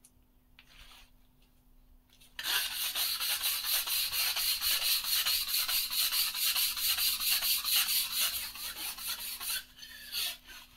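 Stiff hand brush scrubbing a wet cement floor in quick back-and-forth strokes, several a second. It starts about two seconds in and stops shortly before the end, with a stroke or two after. The floor is being rubbed clean after bleaching powder was spread on it.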